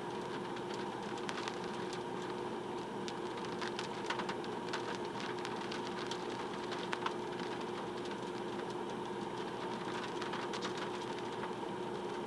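Car engine idling with a steady hum, with scattered light ticks over it.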